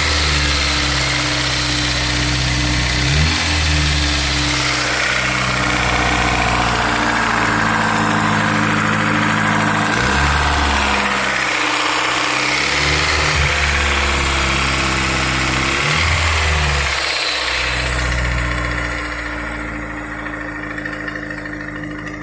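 Honda S2000 (AP1) F20C four-cylinder engine idling, with several short blips of the throttle that raise the pitch before it settles back. The engine is being run to bring out a tick or rattle noise.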